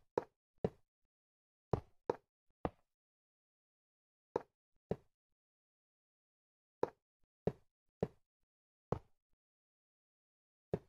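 A series of about a dozen short, sharp knocks, coming irregularly in clusters of two or three, with dead silence between them.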